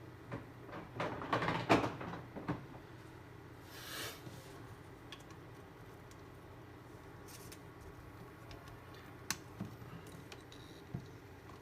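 Light clicks and knocks of objects handled on a workbench, bunched in the first couple of seconds, with a short rustle about four seconds in and a few single clicks later, over a faint steady hum.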